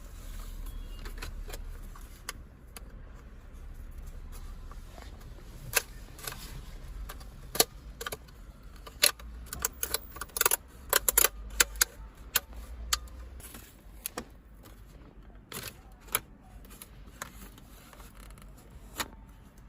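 Hard plastic dashboard trim clicking and snapping as a black plastic frame is separated from a silver one: irregular sharp clicks and knocks, coming thickest in a run of quick snaps in the middle.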